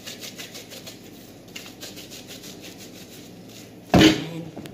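Yeast dough being squeezed and kneaded in plastic-gloved hands: a rapid, even rustling and squishing. A loud thump comes near the end as the dough goes down into a plastic mixing bowl.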